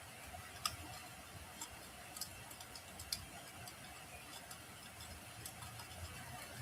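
Wood fire crackling in a fireplace: irregular sharp pops and snaps, roughly one a second, over a faint low rumble and hiss of the flames. The clearest pops come about half a second in and about three seconds in.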